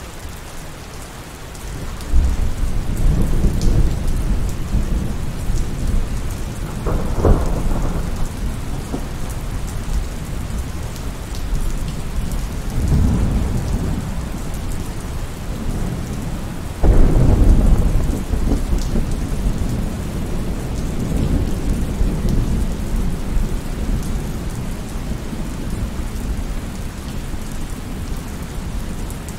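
Steady rain with rolling thunder. A deep rumble sets in about two seconds in and swells several more times, and the loudest thunderclap breaks in suddenly a little past halfway.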